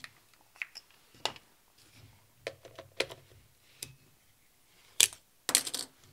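Scattered clicks and knocks from a manual-focus Voigtländer Nokton lens being twisted onto a Fujifilm X-Pro3's bayonet mount, with the sharpest click about five seconds in and a quick run of clicks right after.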